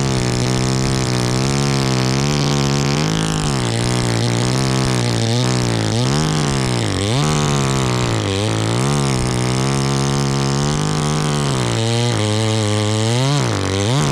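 Two-stroke chainsaw cutting at high throttle, its engine note sagging and recovering again and again as the chain bites into the wood.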